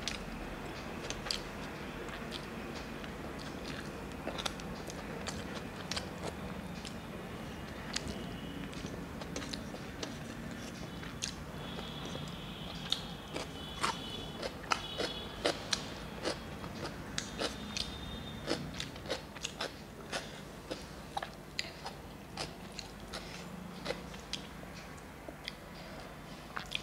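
A person eating by hand close to the microphone: chewing with many short, sharp wet mouth clicks and smacks, which grow busier and louder about halfway through, along with fingers wiping curry and rice across a steel plate.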